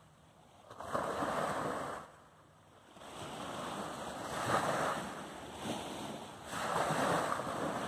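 Small bay waves breaking and washing up a sandy beach, three surges of surf a few seconds apart.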